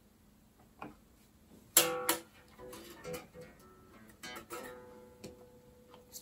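Harley Benton electric bass guitar being plucked: a sharp, loud note about two seconds in, then several softer notes, one of them held.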